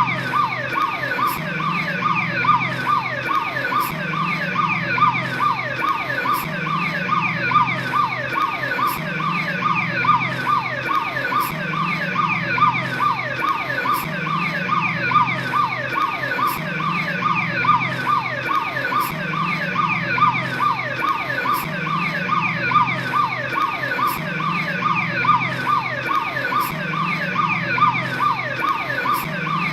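Police patrol car siren sounding a fast, repeating falling sweep, with a low pulsing tone underneath about every second and a half.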